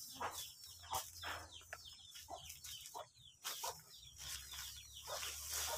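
Chickens clucking faintly, a loose run of short clucks.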